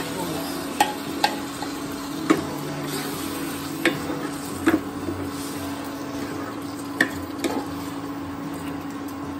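Mushrooms tipped from a bowl into masala frying in a nonstick pan, then stirred in with a plastic spatula: sizzling and scraping, broken by about half a dozen sharp knocks of the spatula or bowl against the pan.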